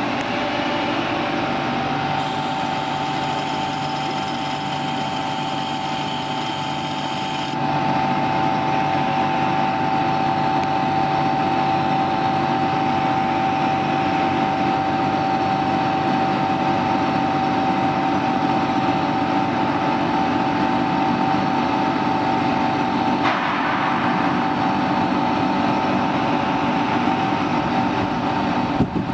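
A 200-litre vacuum homogenizer emulsifier mixer running on water: a steady machine hum with a continuous whine, which gets louder about seven and a half seconds in.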